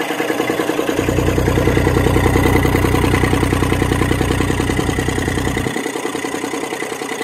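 Kioti CK25 tractor's three-cylinder diesel engine running steadily, heard close up in the engine bay. A deep rumble comes in about a second in and drops away near the end.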